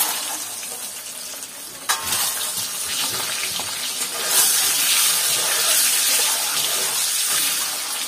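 Turmeric-and-salt-coated boiled eggs sizzling in hot oil in a steel kadhai, with a sharp knock about two seconds in. The sizzle grows louder about four seconds in as the eggs are stirred with a spatula.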